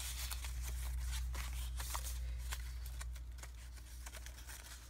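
Light rustling and faint clicks of paper pages being handled and turned in a spiral-bound journal, over a steady low hum that fades in the second half.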